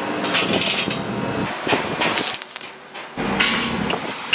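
Several metallic clanks and knocks with a bright ring: heavy steel screw-conveyor flight discs being handled and fitted onto a steel pipe shaft.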